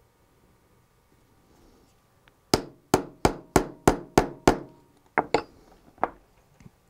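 Small mallet tapping a spring cover into an interchangeable lock core, seating and sealing it over the pin chambers. Seven sharp taps, about three a second, then a few lighter knocks.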